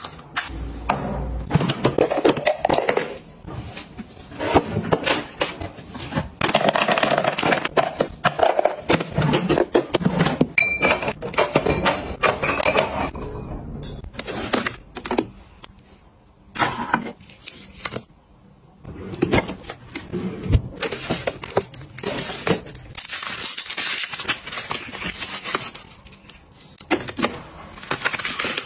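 Groceries and plastic storage containers being handled while stocking a refrigerator: irregular clicks, knocks and rustling of packaging, with a few seconds of denser, hissy rustling a little before the end.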